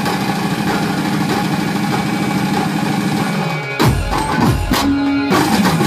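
A steady buzzing drone for the first three and a half seconds, then the dhumal band's large bass drums strike up a loud, fast beat, the deep hits dropping in pitch as they ring, with a short held note between them.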